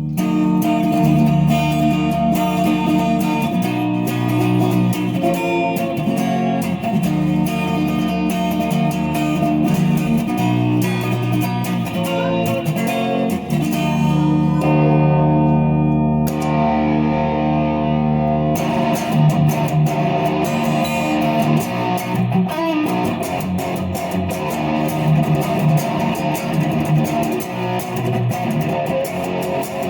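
Epiphone Les Paul SL electric guitar with a Fender humbucker fitted, played as picked notes and chords. About halfway through, the playing holds on a chord that rings and dies away, then resumes with quicker picking.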